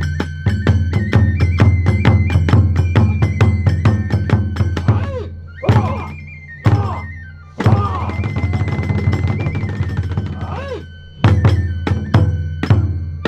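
Kagura hayashi music: a big drum beating fast and evenly with clashing hand cymbals under a flute melody. About halfway, the drumming breaks into single heavy strokes, then a long ringing cymbal wash under a held flute note, and a few more heavy drum strokes near the end.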